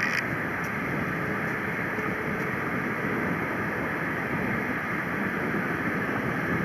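Airbus A350-900's Rolls-Royce Trent XWB turbofans running at low taxi thrust, a steady rushing hum that holds level without spooling up.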